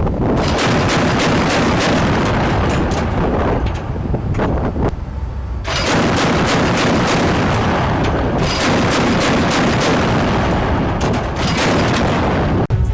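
Gunfire and booms, many shots in quick succession over a loud rumble. They thin out briefly about five seconds in and cut off abruptly just before the end.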